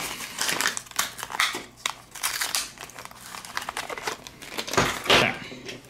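A paper-wrapped pack of AA batteries being torn open by hand, its packaging crinkling and crackling unevenly, with a louder crackle near the end.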